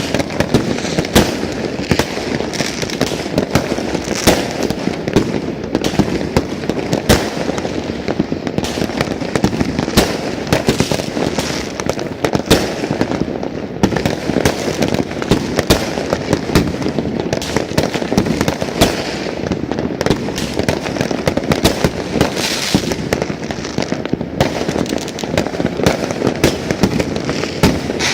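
Many fireworks going off at once: a continuous dense rumble of distant bangs with frequent sharp cracks and pops layered over it, never pausing.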